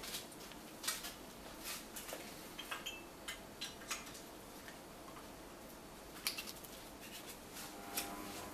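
Handling noise from a gas mask and its water flask: scattered sharp clicks and light taps at irregular intervals, the loudest about a second in and again past six seconds.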